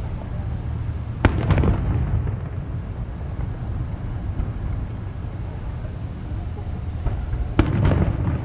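Aerial firework shells bursting at a distance: two sharp bangs about six seconds apart, one about a second in and one near the end, each followed by a rolling echo, over a steady low background noise.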